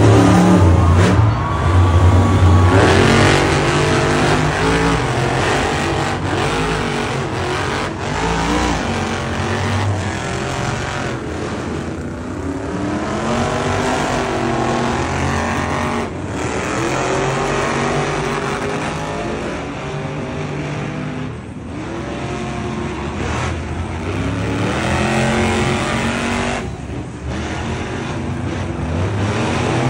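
Several monster trucks' supercharged V8 engines running and revving over and over, the pitch climbing and dropping with each rev. The loudest, deepest running comes in the first few seconds.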